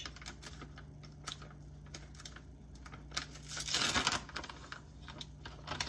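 A bag of tapioca flour crinkling and rustling as it is opened and handled, with small crackles throughout and a louder rustle about three and a half seconds in as a measuring spoon goes into the bag.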